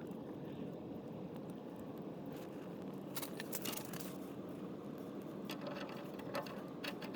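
Scattered light clicks and scrapes of a gas-line adapter fitting being handled while pipe thread sealant is applied to its threads, over a steady low hum.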